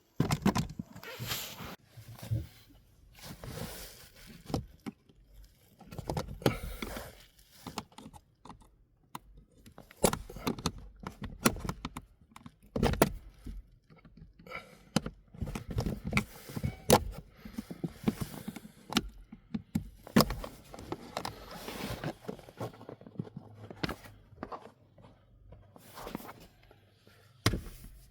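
Hands and tools working on a car's blower motor area: irregular clicks, scrapes and knocks.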